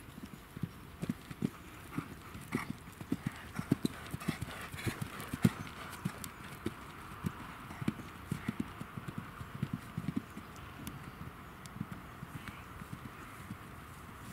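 Horse's hooves thudding on turf as it canters across a grass course, a run of dull hoofbeats that grow fainter and sparser as the horse draws away.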